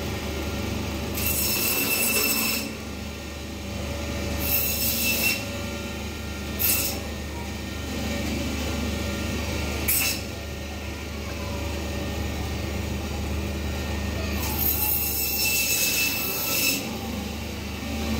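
Butcher's meat band saw running with a steady low hum, its blade screeching in bursts as it cuts through bone-in mutton: five cuts, the longest lasting about two seconds near the end.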